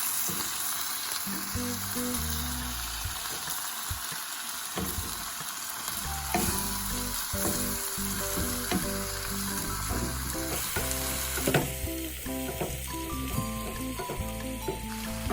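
Wombok, mushrooms and beef mince sizzling in a frying pan while being stirred. Background music with stepping notes comes in softly about a second and a half in and grows fuller about six seconds in.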